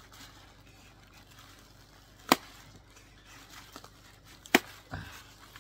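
A utility razor knife being handled: two sharp clicks a little over two seconds apart, then a soft thump near the end. The knife's blade is dull and due for a change.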